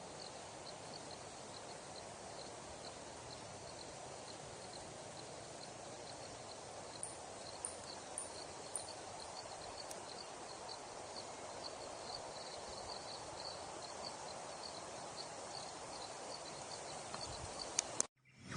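Steady outdoor nature ambience: an even background hiss with a faint high chirp repeating a few times a second, like an insect, and a few sharp clicks midway. It cuts off abruptly near the end.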